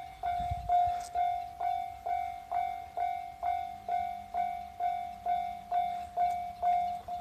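Japanese railway level-crossing warning signal ringing its repeated 'kan-kan' dings, about two strikes a second at a steady pace: the crossing is closed for an approaching train.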